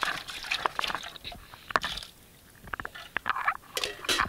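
A metal lid scraping and clicking against a pot's rim as liquid is drained off through the gap into a plastic basin, then the lid set down on the ground with a few sharp clicks and scrapes.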